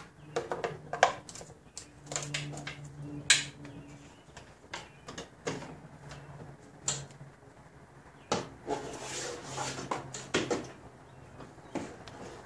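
Irregular clicks, taps and knocks of a power steering high-pressure hose and its metal line being worked down through a car's engine bay, rubbing and knocking against the parts around it.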